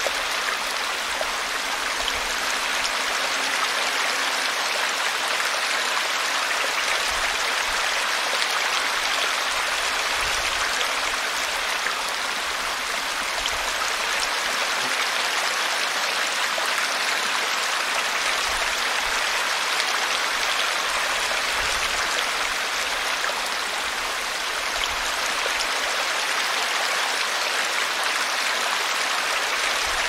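A small forest brook babbling with a steady, gentle rush of water. The rush comes from air bubbles churned into the water as it flows.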